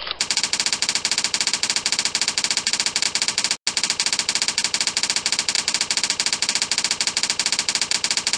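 Typewriter sound effect of a PowerPoint text animation: rapid, even key clacks, about eight a second, as slide text is typed out letter by letter. It breaks off briefly about three and a half seconds in.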